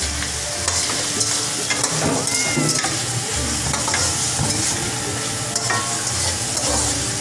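Meat sizzling in a hot wok while a wooden spatula stirs it, scraping and knocking against the pan.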